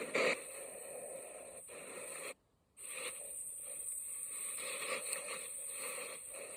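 Sea waves washing in a continuous noisy rush, with a brief surge just after the start. About two and a half seconds in, the sound cuts out to near silence for half a second, then comes back.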